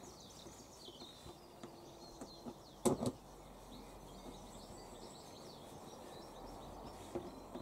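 Quiet handwork with a screwdriver on a generator's plastic access cover: one sharp knock about three seconds in and a few faint ticks. Small birds chirp in the background.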